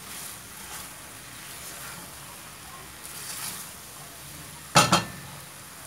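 Wooden spatula stirring and scraping curry in a stainless steel pan over a low sizzle, with a few soft swishes, then two sharp knocks close together near the end as the spatula strikes the pan.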